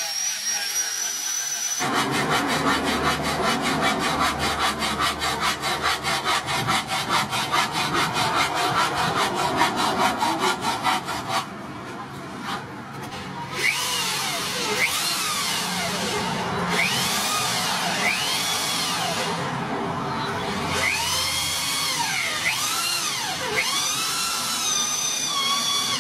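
An angle grinder whines steadily against the steel blade for about two seconds, then a fast, even rattling grind runs for about ten seconds. After a short lull, an electric drill bores into a wooden handle block, its motor pitch rising and falling again and again as the bit bites and frees.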